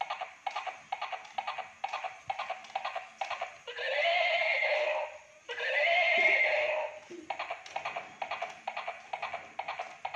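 Battery-operated toy horse's sound chip playing electronic hoofbeat clip-clops and a horse's neigh. Quick runs of clip-clop clicks, broken in the middle by two long whinnies one after the other.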